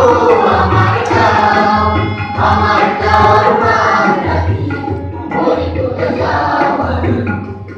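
A group of voices singing an Assamese song together, accompanied by hand drums keeping a steady beat.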